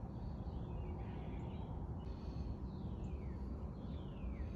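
A bird calling: several short whistled notes, each sliding down in pitch, mostly in the second half, over a steady low background rumble.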